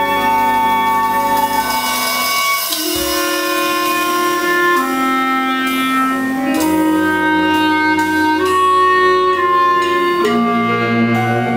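Live ensemble of clarinet, cello, double bass and electric guitar playing slow, long-held notes in layered chords that shift to new pitches every second or two.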